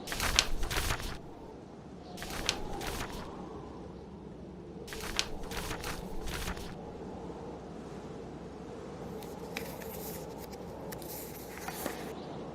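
Fireplace crackling in clusters of sharp pops, four bursts a few seconds apart, over a steady low wind-and-fire bed from a blizzard ambience mix.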